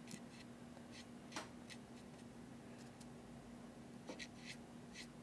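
Faint, scattered scratches and light clicks of a small brush being rubbed against sticks of pastel chalk in their box, the loudest about a second and a half in and a small cluster near the end, over a steady low hum.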